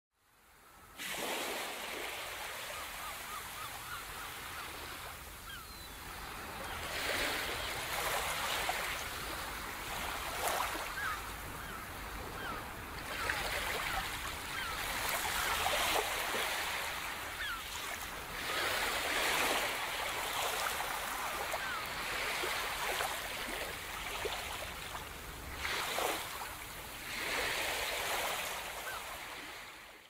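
Sea waves washing onto a beach: a steady hiss of surf that swells every few seconds as waves break. It fades in about a second in and fades out at the end.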